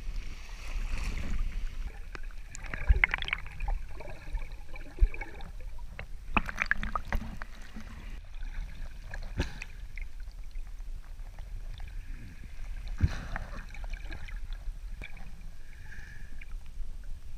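Sea water sloshing and splashing around a waterproof action camera at the water's surface, with a steady low rumble and scattered sharp knocks a few seconds apart. Near the end the camera goes under the water.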